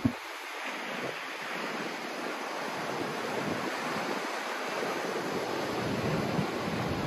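A steady rushing noise that slowly grows louder, with a single low thump right at the start.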